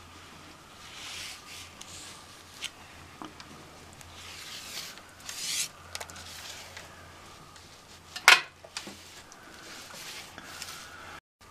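Cloth rubbing and wiping over a PVC window frame and glass, in several swishing strokes. There are a few small clicks and one sharp knock about eight seconds in, over a faint steady hum.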